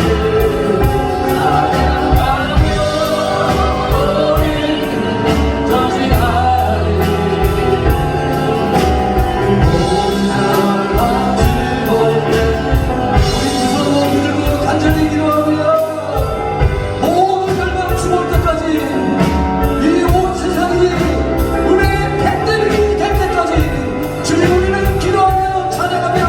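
Contemporary worship song: voices singing over band accompaniment with a steady drum beat.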